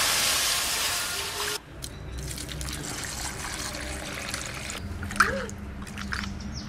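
Water poured into a hot iron wok hisses loudly for about a second and a half, then stops abruptly. After that comes quieter pouring and splashing as water runs over fish pieces in a pot and a hand swishes them to rinse them.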